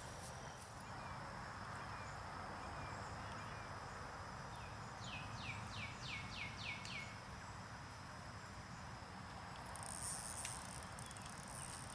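Faint pond-side ambience with a steady high insect drone. About five seconds in, a bird gives a run of about six quick falling notes.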